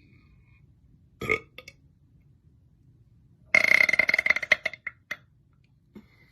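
A woman burping: a short burp about a second in, then a long loud burp lasting over a second, with a brief one right after it.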